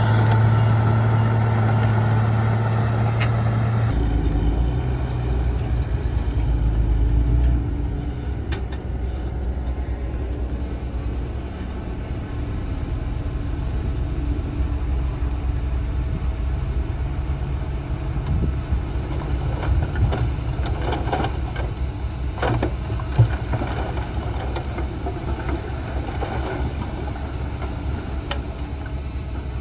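Heavy earthmoving machine's diesel engine running steadily; its note changes about four seconds in, and a few metallic clanks come near two-thirds of the way through.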